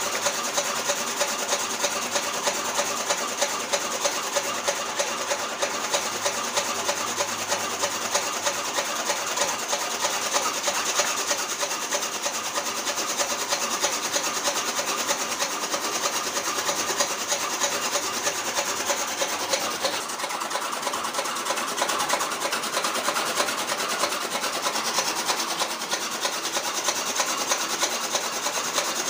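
A small motor-driven DIY miniature chaff cutter running steadily, with a continuous rasping whir and a regular light clicking.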